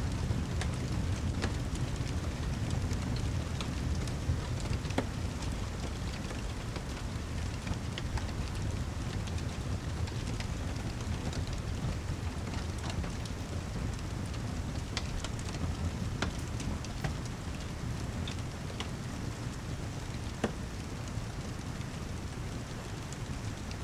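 Steady heavy rain over a continuous low rumble, dotted with scattered sharp pops and crackles.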